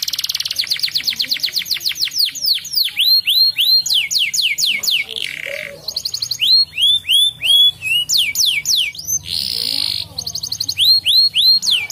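Crested canary singing a long song of trills made of fast down-slurred whistles, dense at first and slower later. The trills are broken twice by short buzzy rolls, about five and nine seconds in.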